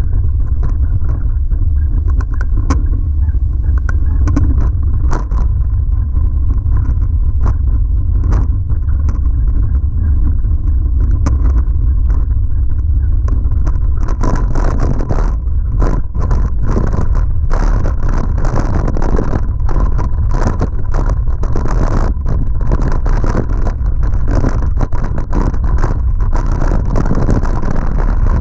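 Wind rumbling on the microphone, with the constant rattling and knocking of a 2011 Giant Trance X0 full-suspension mountain bike riding over a rocky trail. About halfway through the clatter grows much denser as the tyres roll onto loose rock.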